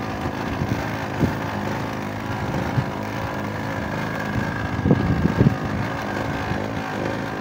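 An engine on the wooden fishing boat runs steadily, with a few soft knocks on the deck.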